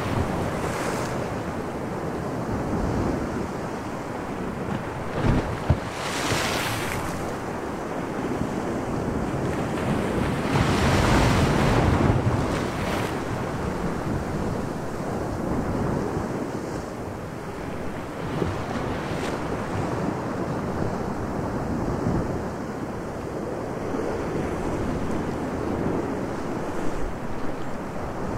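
Sea waves and wind as an added sound effect, a steady wash with two louder rushes of surf, about six and eleven seconds in. Two brief knocks sound just before the first rush.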